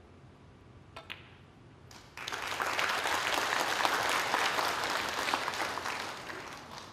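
Two sharp snooker-ball clicks about a second in, the cue tip striking the cue ball and the cue ball hitting the black. Audience applause follows from about two seconds in and fades toward the end.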